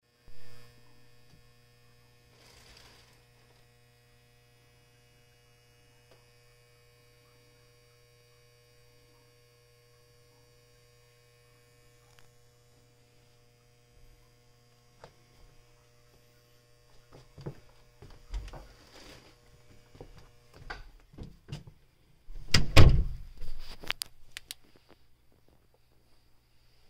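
Steady electrical mains hum with faint higher tones over it. A short thump right at the start, and from about two-thirds of the way through, a run of knocks and clatter, loudest a few seconds before the end.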